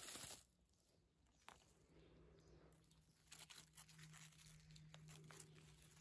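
Mostly near silence, opening with a brief crunch of a footstep on dry fallen leaves and soil, followed by scattered faint crackles of dry leaves.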